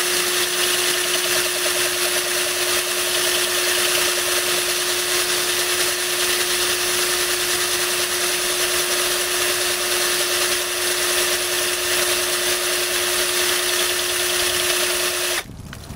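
Electric drill running steadily as its bit grinds into the side of a glass bottle, with water poured over the cut; the drill stops abruptly near the end.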